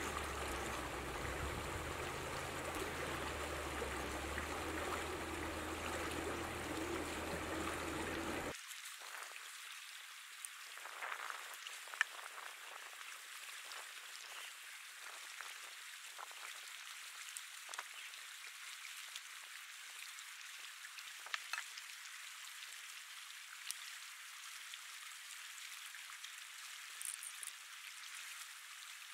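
Shallow stream running over stones, a steady rush that stops suddenly about eight seconds in. After that only a faint hiss remains, with scattered light clicks and taps of a knife cutting eggplant on a wooden board.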